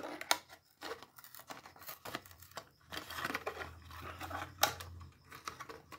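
Clear plastic blister of a die-cast toy car's card pack being handled and pried away from its cardboard backing, its glue loosened with acetone: irregular crinkling and crackling of the plastic, with one sharper snap about two-thirds of the way through.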